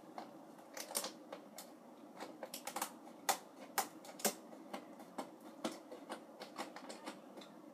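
Irregular light clicks and taps of hands picking at a toy's cardboard-and-plastic package, opening its taped sides.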